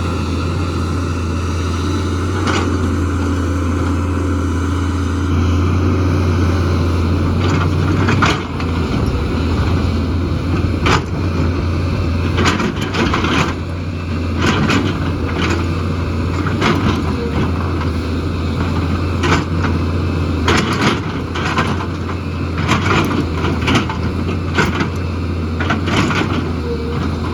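JCB excavator's diesel engine running steadily under working load. From about eight seconds in, irregular knocks and clattering of rock and stone against the bucket come through over it, several in quick runs.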